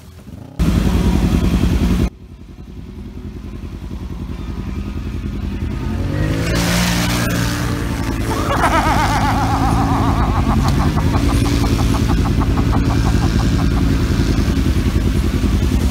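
ATV and side-by-side engines revving as they drive through a river, the pitch rising and falling with the throttle. A loud engine burst near the start cuts off suddenly at a shot change, and the engine sound then builds and holds loud with a fast-pulsing high whine.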